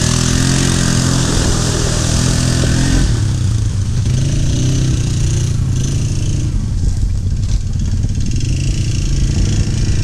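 ATV engine running, its pitch rising and falling as the throttle changes. A loud hiss sits over it and stops sharply about three seconds in.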